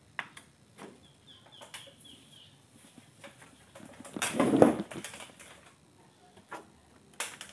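Small clicks and knocks of handling, with a louder scraping rustle about four seconds in as the power plug of an LCD TV is pushed into a wall socket.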